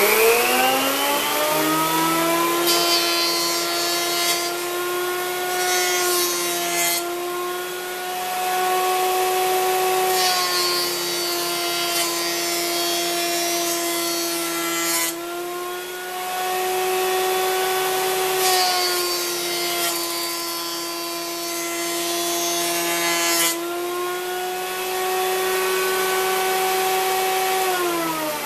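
Delta benchtop jointer running with a steady motor whine, still rising in pitch as it comes up to speed at the start. Three times a board is passed over the cutterhead, each pass a few seconds of hissing planing noise as it cuts and throws shavings. Near the end the motor is switched off and winds down, its whine falling in pitch.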